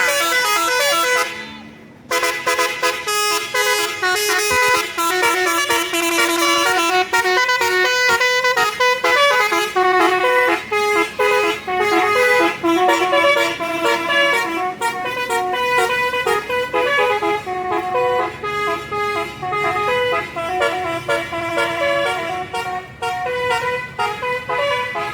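A tour bus's basuri horn, a multi-tone musical horn, playing a fast tune of short stepped notes. It breaks off briefly about a second in, then plays on without a pause.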